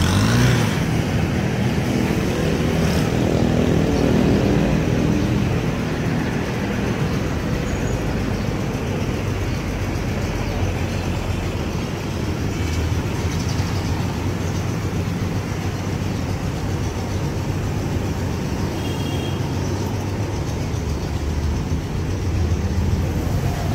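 Vehicle engine idling with a steady low rumble; its pitch shifts up and down a little in the first few seconds, then holds steady.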